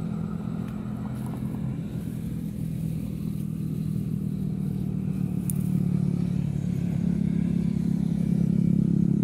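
An engine running steadily with a low hum, slowly growing louder.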